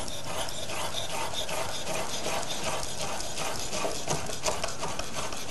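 Chef's knife chopping roasted turkey thigh meat on a wooden surface: quick, evenly repeated strokes of the blade, several a second.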